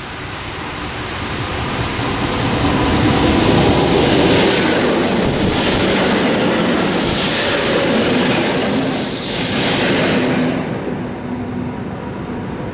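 EN57 electric multiple unit passing close by. It grows louder as it approaches, clatters several times as the cars go past, then dies away about ten seconds in.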